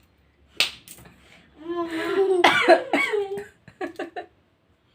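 A woman coughing: a sharp cough about half a second in, then a longer throaty bout, and a quick run of four or five short coughs near the end. It is a chesty cough with a tickle in the throat; she says she has phlegm.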